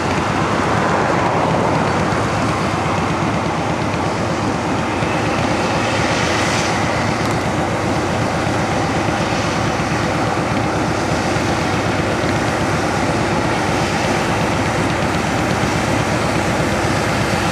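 John Deere 9860 STS hillside combine and John Deere 9300 tractor running close by. Their engine noise is loud and steady, with an even low rhythm.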